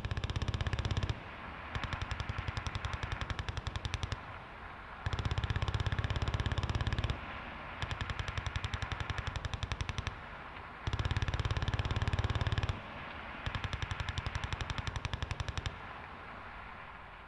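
General purpose machine gun firing six bursts of rapid automatic fire, each about two seconds long with short pauses between. The last burst ends in a fading echo.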